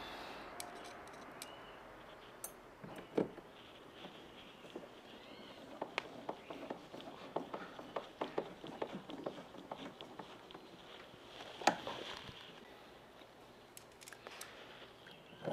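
Hand screwdriver turning screws into a kayak's pedal-drive rail: scattered small clicks and scrapes of metal on metal, with one sharper click about twelve seconds in.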